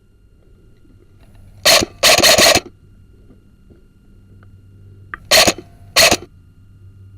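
Airsoft gun firing: a single shot, then a short rapid burst of several shots, then two more single shots a little over half a second apart near the end.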